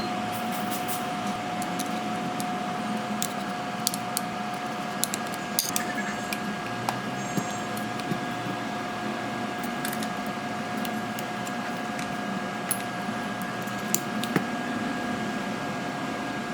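A steady machine hum with a faint whine, with small sharp clicks and taps scattered through it, about a dozen, more of them in the middle.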